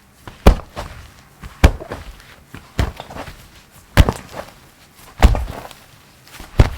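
Slime being played with by hand: six sharp slaps or pops, about one every second.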